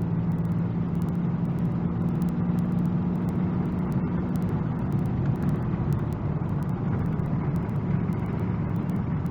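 5.9-litre 24-valve Cummins diesel engine of a Dodge Ram 3500 running at a steady pitch, with road noise underneath.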